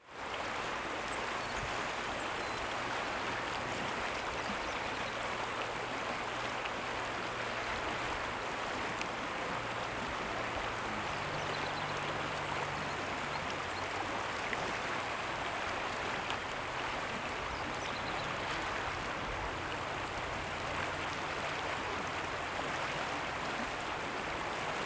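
Steady rush of a shallow river flowing over riffles, even and unbroken throughout.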